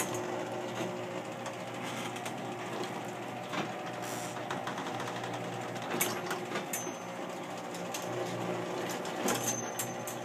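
Raynor Pilot 2265 garage door opener running the door down: a steady motor hum with rattling and scattered clicks from the drive. The owner says it is a lot louder than it should be, from a fault he hasn't traced.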